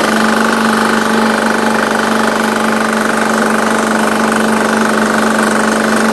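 Small garden tractor's engine running steadily under load while it plows garden soil.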